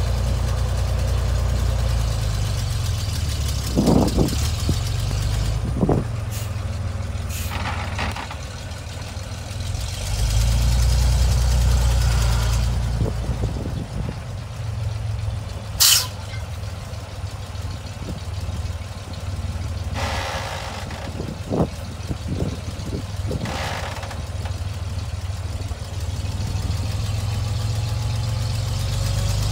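1970 Chevrolet grain truck's 478 V6 engine idling, running louder for a couple of seconds about ten seconds in. Short air hisses come from the truck's air system several times, the sharpest about halfway through, along with a few sharp knocks.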